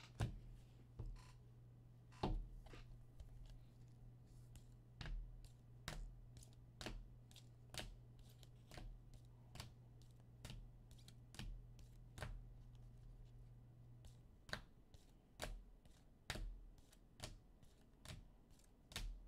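Trading cards in hard plastic top loaders clicking against each other as they are moved one at a time through a stack, about one click a second.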